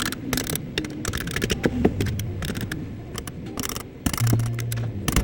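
A run of irregular sharp clicks and scrapes from hand work on small parts during a remote-control repair, with a short low hum about four seconds in.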